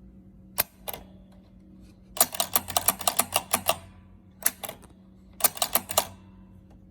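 Electromechanical pinball stepper unit clicking as it is tested after cleaning: a single click, then a fast run of about a dozen clicks, then two shorter runs as it steps and resets.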